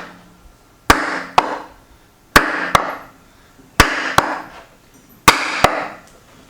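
Hammer blows on the rusted, seized parts of a Monarch 10EE lathe, struck to drive them loose. The blows come in pairs of two quick strikes about every second and a half, and each strike rings briefly.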